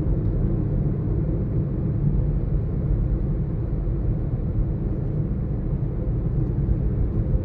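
Steady low rumble of a moving vehicle, with engine and road noise holding an even level throughout.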